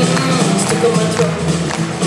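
Live rockabilly band playing: electric guitars and drum kit over a bass line that pulses a few times a second, heard from the audience in a large hall.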